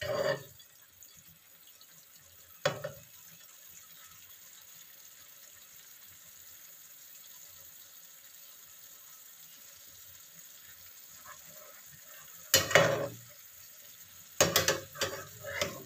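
Stew simmering in a nonstick frying pan with a faint steady sizzle, while a metal spatula stirs and scrapes against the pan. It clatters once at the start, once about three seconds in, and several times near the end.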